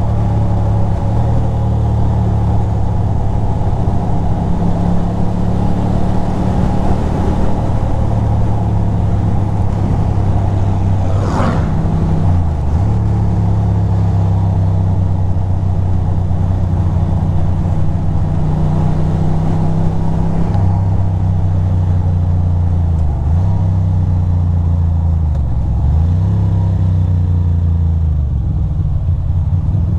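2006 Ducati Monster 620's air-cooled L-twin engine running at road speed, with wind rushing past. The engine note drops and picks up again several times in the last few seconds as the bike slows.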